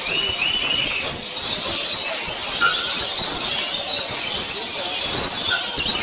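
A flock of lorikeets screeching, with many shrill, overlapping calls that carry on throughout.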